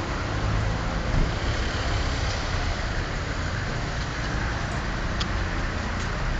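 Road traffic on a rain-soaked, flooded street: a steady rushing of tyres and engines.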